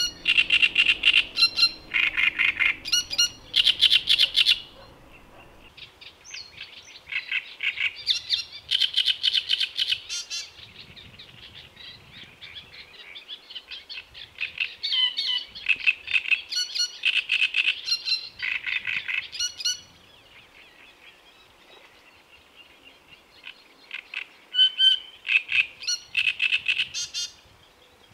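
Male great reed warbler singing its loud, harsh song of rapidly repeated gruff, scratchy syllables. It sings in three bouts: from the start to about five seconds in, again from about seven to twenty seconds, and briefly around twenty-five seconds.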